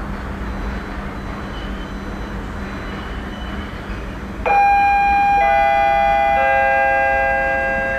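Station public-address chime: three ringing notes enter about a second apart, each lower than the last, and sound on together. This is the attention signal before a train announcement. Before it there is a steady low rumble.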